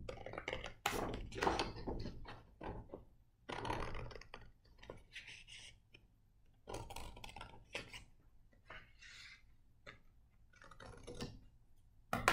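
Scissors snipping through a sheet of paper in short, irregular cuts, with the paper rustling as it is turned, and a knock near the end as the scissors are set down on the table.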